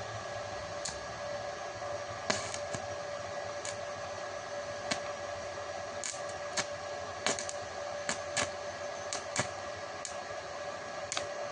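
Small inverter stick (MMA) welder setup: a steady hiss with a hum, broken by about a dozen irregular sharp clicks and pops.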